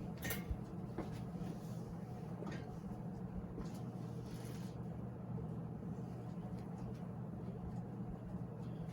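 1979 Hunter Original ceiling fan's 2.5 amp shaded-pole motor running steadily on high speed, a low even hum and whir of the motor and blades moving air. The fan runs smoothly and in balance.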